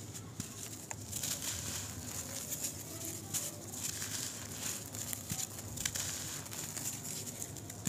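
Dry, gritty brown dirt crumbling in the hand and trickling through the fingers onto loose soil: a continuous gritty crackle made of many small sharp crunches.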